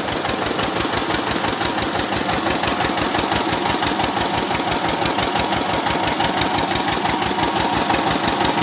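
An old Eicher tractor's diesel engine running steadily at a constant speed with an even firing beat, parked and driving an irrigation water pump.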